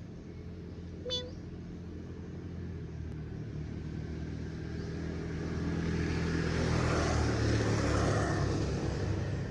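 A motor vehicle's engine running with a low hum that grows louder, peaking near the end as the vehicle passes close by. There is a brief high chirp about a second in.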